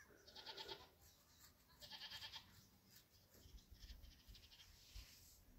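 Faint bleating of farm animals: three short quavering calls, about half a second each, the last one fainter.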